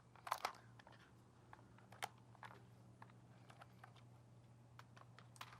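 Faint, scattered clicks and light taps of things being handled and set down, over a low steady hum.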